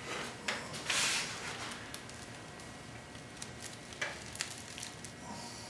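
Twine being pulled tight around the bundled broomcorn of a broom: a brief rasping rustle about a second in, followed by a few scattered small clicks and creaks from the straw and twine.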